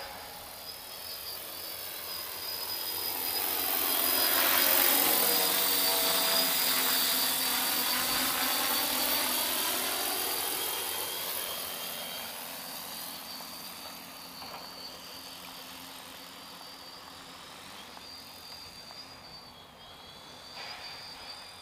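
Large electric multirotor agricultural spray drone, laden with a tank of water, flying past: its propeller drone swells to a peak between about four and ten seconds in and then fades away.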